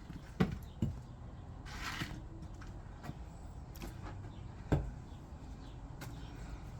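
Wood being chopped by hand: a few dull knocks of the blade striking the wood, two close together near the start, a fainter one in the middle and the loudest near the end, with a short hiss about two seconds in.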